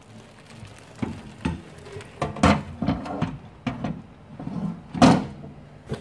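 Knocks and clunks of a microwave door being opened and a plate of cookie dough set down on its glass turntable, the loudest clunk about five seconds in.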